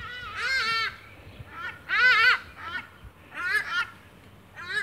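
A series of short, high-pitched animal calls, about one a second, each rising then falling in pitch.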